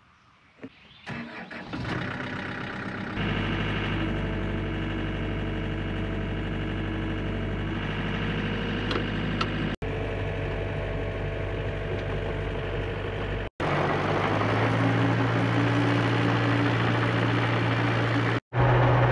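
Hyundai HX85A excavator's diesel engine starting from silence. It turns over about a second in and catches into a steady run at about three seconds. It runs at higher revs in the last few seconds, with two or three short breaks in the sound.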